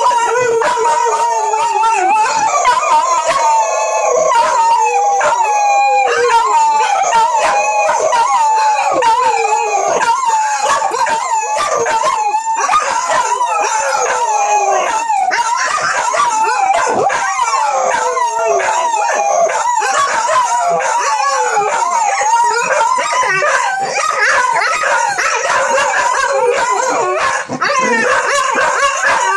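Dog howling like a wolf, long wavering howls one after another with hardly a break.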